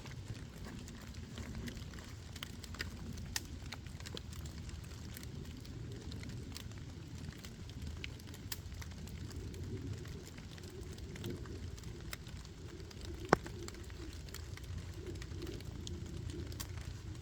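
Wood campfire crackling, with scattered sharp pops and one louder pop about thirteen seconds in, over a steady low rumble.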